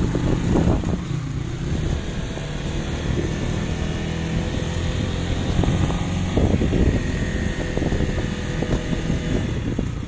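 Motorcycle engine running steadily while riding along, heard from the pillion seat with wind noise on the microphone.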